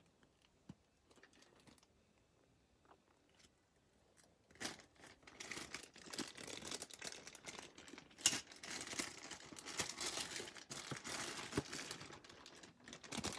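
Clear plastic accessory bags crinkling and rustling as hands rummage through them in a hard case. Mostly quiet with a few light clicks at first, then continuous irregular crinkling with sharp crackles from about four seconds in.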